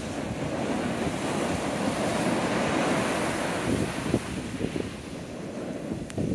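Heavy surf, raised by an approaching tropical storm, breaking and washing up the beach in a continuous rush that swells about two to three seconds in, with wind buffeting the microphone.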